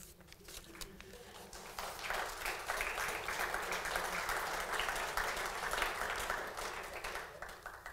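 Audience applauding, building up over the first couple of seconds and dying away near the end.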